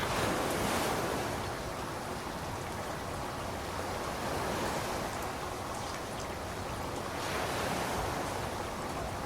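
Ocean surf breaking and washing up a sandy beach, a steady hiss of water that swells twice, at the start and again about seven seconds in.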